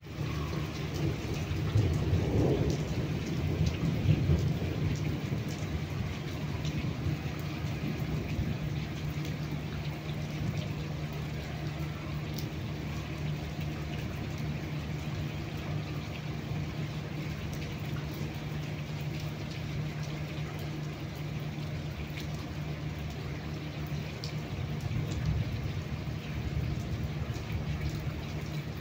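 Heavy rain pouring steadily onto a flooded concrete rooftop terrace, an even hiss of drops splashing into standing water. About two seconds in, a low rumble swells and fades over a few seconds.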